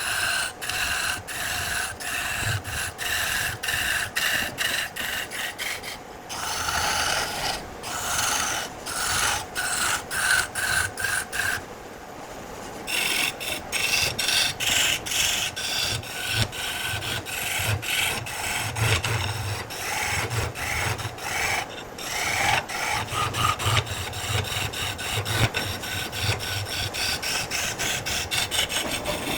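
A hand tool scraping wood in rapid repeated strokes, with a short break about halfway. The strokes quicken to several a second in the second half.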